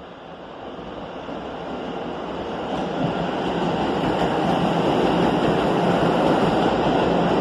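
R211 subway train running into the station and past, its wheel-on-rail noise growing louder over the first three seconds as it nears, then holding steady as the cars go by close.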